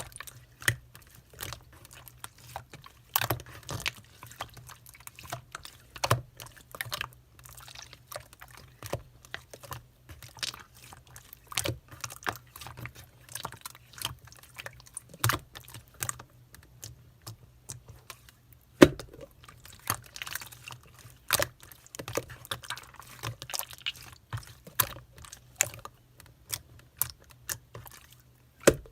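Clear green slime being squeezed and stretched by hand, giving irregular sticky clicks and pops of trapped air, with a faint steady low hum underneath.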